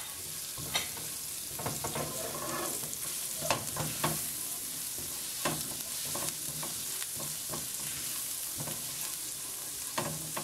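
Minced garlic sizzling in hot oil in a nonstick wok, stirred with a silicone spatula that knocks and scrapes against the pan every second or two.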